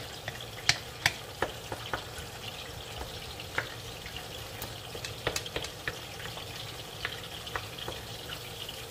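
Onions and tomatoes sizzling steadily in oil in a metal wok, stirred with a wooden spatula that knocks and scrapes against the pan at irregular moments.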